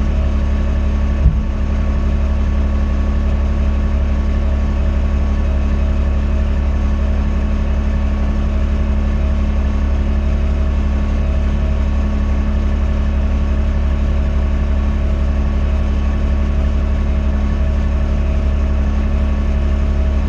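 Loader engine running at a steady speed, with a single knock about a second in.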